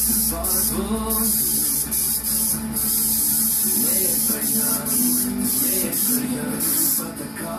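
Airbrush spraying paint: a steady high hiss of air that cuts out briefly several times, over background music.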